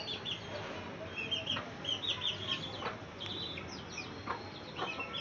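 A flock of desi chickens clucking and calling, many short high calls overlapping one another, with a few faint knocks.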